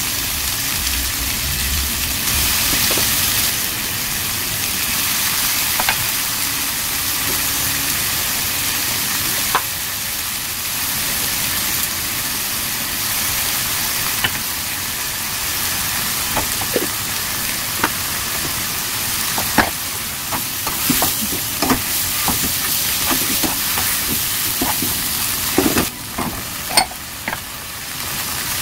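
Sliced asparagus, button mushrooms and onion sizzling steadily in hot oil in a wok. Scattered light clicks and knocks come through the sizzle, more often in the second half.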